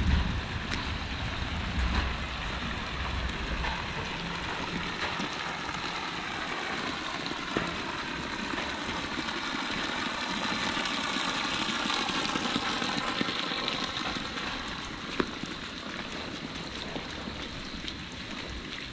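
Heavy storm rain falling steadily, a dense even hiss, with a low rumble in the first couple of seconds and a faint wavering hum near the middle.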